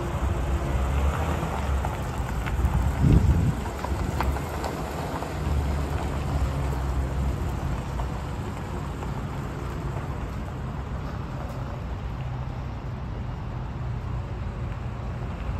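Chevrolet Silverado 2500HD service truck's engine running as it moves off, with a steady crunch of tyres and feet on gravel and a short louder burst about three seconds in.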